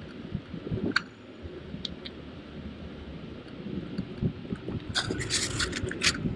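Folding bicycle being ridden along a paved lane: a steady rumble of tyres and frame, with small clicks and rubbing scrapes, and a burst of harsher scraping rattle about five seconds in.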